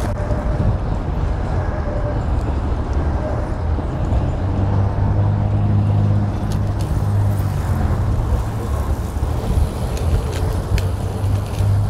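Wind rushing over the microphone of a bike-mounted action camera, together with tyre noise, while riding along a paved path. A low steady hum grows louder about four seconds in and continues.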